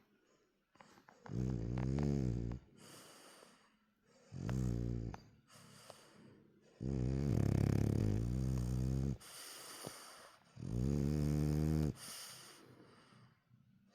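French bulldog snoring: four loud, low snores about every three seconds, the third the longest at about two seconds, with soft breathy breaths between them. It is the snoring typical of a short-nosed breed's narrow airway.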